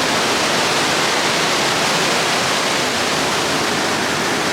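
Underground waterfall rushing in a cave, a steady loud roar of falling water that fills the space.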